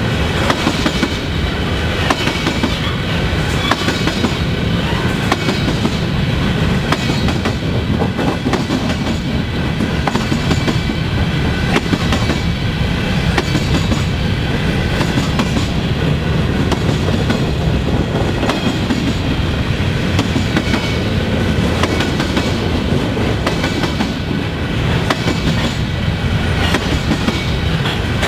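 Freight train of covered hopper cars rolling past at steady speed: a continuous rumble of steel wheels on rail, with repeated clicks and clacks as the wheels cross rail joints.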